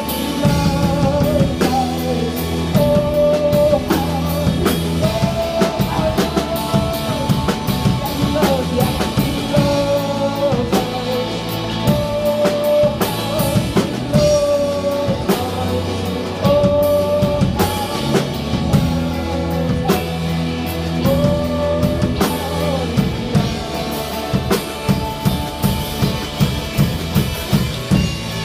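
Live band of drum kit and electric guitars playing a passage without sung words: a steady low bass line, drum beat and a melody of long held notes. Near the end the drum hits come to the fore in a quick, steady beat.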